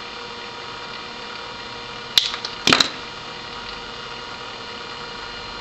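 Flush cutters snipping the excess leads off a pin header: one sharp snip about two seconds in, then two or three more in quick succession, over a steady background hum.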